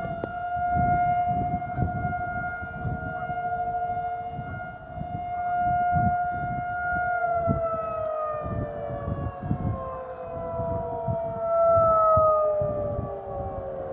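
Several Federal Signal 2001-series outdoor warning sirens, the nearest being the 2001-130, sound a steady tone whose loudness swells and fades as the rotating heads turn. About seven seconds in they begin winding down, their pitch falling slowly. Wind buffets the microphone with a gusty low rumble.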